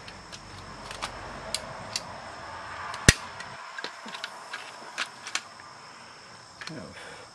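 Small plastic clicks and knocks from a portable cassette player's housing and circuit board being handled and worked apart, with one sharper click about three seconds in.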